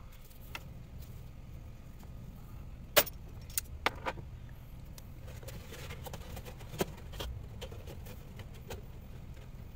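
Sharp metallic clicks and clinks of pliers and a hose clamp being worked by hand on a coolant hose, the loudest about three seconds in and a few smaller ones after, over a steady low hum.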